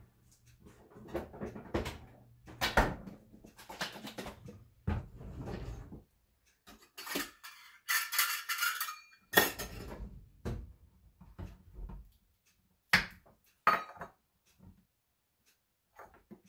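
Kitchen clatter of scattered knocks and clinks: a refrigerator door and a ketchup bottle handled, then a metal measuring cup and other utensils rattled in a drawer, with a longer rattle about eight seconds in.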